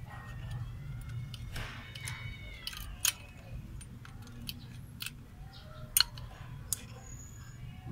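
Light metallic clicks and ticks as fingers unhook a small spring from the advance mechanism inside an opened Nippon Denso contact-point distributor. Three sharp clicks stand out, about three seconds in and twice near the six-second mark, over a low steady hum.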